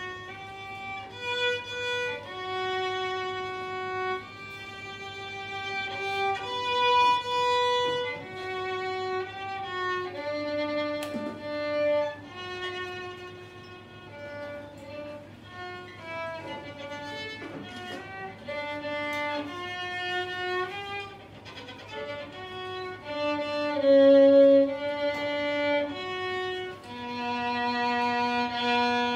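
Solo violin playing live, a slow melody of long bowed notes, one to two seconds each, with some shorter notes later on.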